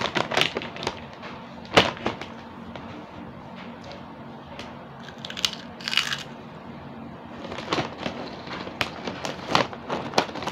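Crisp Mang Juan chicharon snack being bitten and chewed: a series of sharp crunches and cracks, the loudest about two seconds in, with more crackly crunching in the second half as a hand goes into the plastic snack bag.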